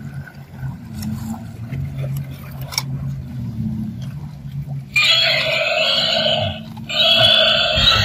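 Battery-operated walking animal toys: a low, steady motor whir, then a loud electronic call from a toy's speaker about five seconds in, repeated about two seconds later.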